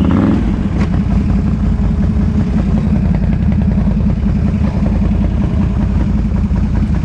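An ATV engine running steadily and loudly, its firing pulses dense and low-pitched, with no big rise or fall in revs.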